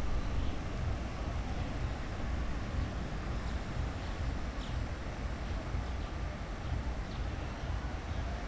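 Wind buffeting the microphone in a low, uneven rumble over the steady wash of sea surf on a beach.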